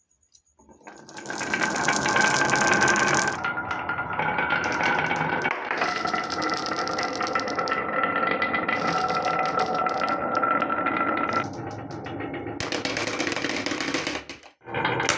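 Many marbles rolling and clattering down a wooden HABA marble run track: a dense rattle of clicks over a steady whirring tone from the rolling. It starts about a second in and breaks off briefly near the end before picking up again.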